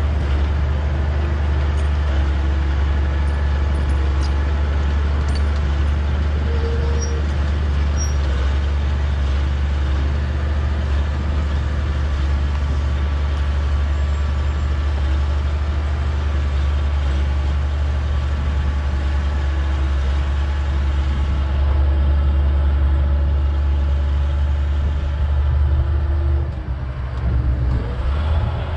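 Bulldozer's diesel engine running steadily under load, with a brief dip in level near the end.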